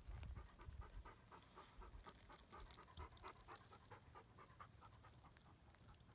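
Quiet, rapid panting, about five breaths a second, fading out near the end, with a low rumble of wind on the microphone in the first second.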